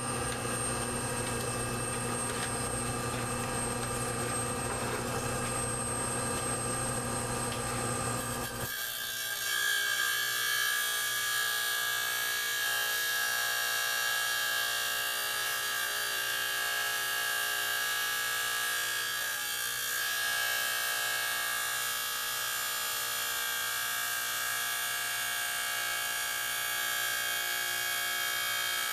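Electric lapidary wheel running while a labradorite slab is pressed against it, grinding the stone down towards its drawn outline. About 9 s in, the deep motor hum drops away abruptly and a higher, hissing grind with a steady whine takes over.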